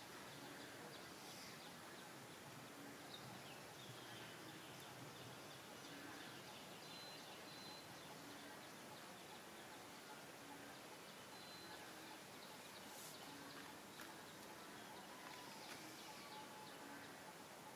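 Near silence: faint steady outdoor background hiss, with a few short, faint high bird chirps.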